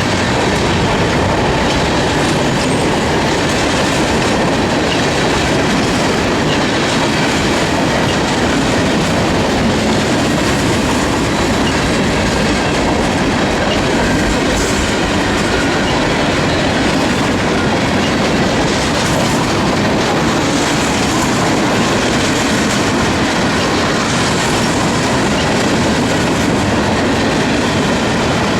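CSX freight train's cars rolling past at a steady pace, a loud, even rush of wheel and rail noise with no horn.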